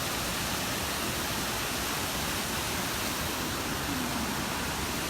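Steady rushing of a waterfall, its water pouring and churning over rock ledges.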